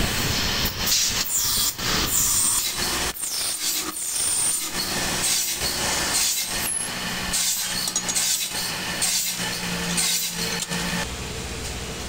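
Metal lathe turning a metal door-handle rod, with repeated rasping scrapes against the spinning workpiece, roughly one to two a second. A steady motor hum joins about halfway through, and the sound drops away shortly before the end.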